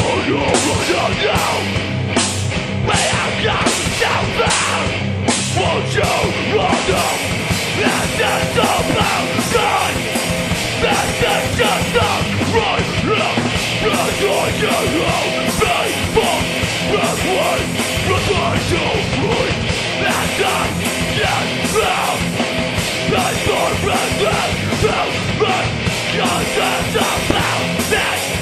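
Loud heavy rock music with a steady drum beat and vocals, playing without a break.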